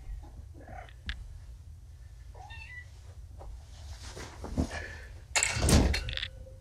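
Kittens groggy on pain medication after being spayed and neutered, giving a few short meows, one rising in pitch. About five and a half seconds in comes a loud, brief noisy burst.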